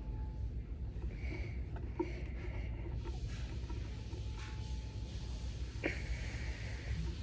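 Fidget toys handled close to the microphone: a few soft clicks and brief rustling sounds over a steady low hum.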